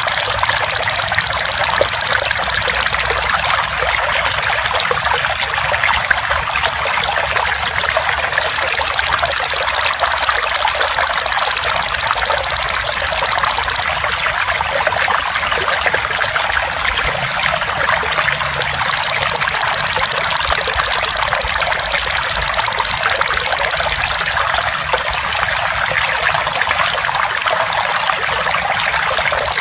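Steadily trickling water with a belalang emas (golden grasshopper) buzzing loudly over it in shrill trills of about five seconds, separated by pauses of similar length, as in a looped song-bird training (masteran) track.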